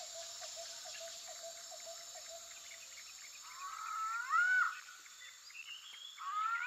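Wild forest ambience: an animal call that rises and falls in pitch, heard twice, over a steady high insect hiss, with a rapid pulsing call fading out in the first couple of seconds.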